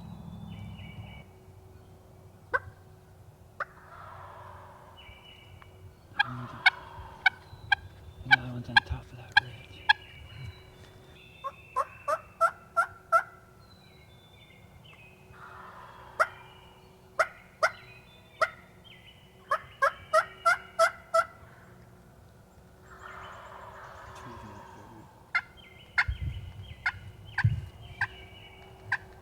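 Wild turkey gobbling several times, the gobbles interleaved with runs of sharp, evenly repeated turkey yelps. Wind gusts rumble on the microphone at the start and near the end.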